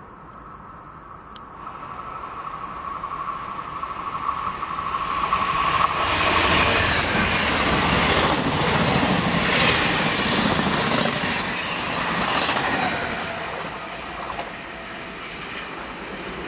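Regional passenger train of coaches passing close through a curve: a steady high-pitched wheel squeal at first, then the noise builds to a loud passage of rolling coaches with rhythmic wheel clatter over the rail joints, easing off near the end.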